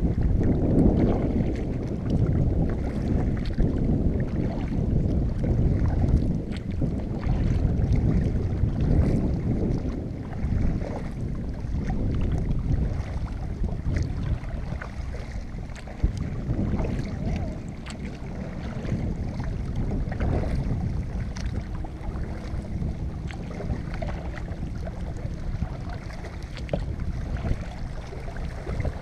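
Wind noise on the microphone over water sloshing and dripping from the strokes of a kayak paddle, rising and falling with each stroke.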